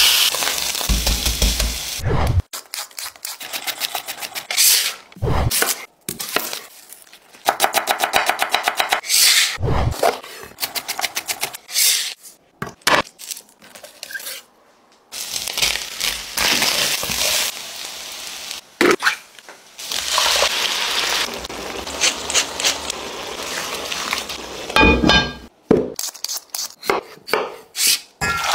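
A run of kitchen prep sounds: ground meat dropping into a hot cast-iron pan and sizzling, then a chef's knife chopping quickly on a wooden cutting board, with scrapes of the blade across the board.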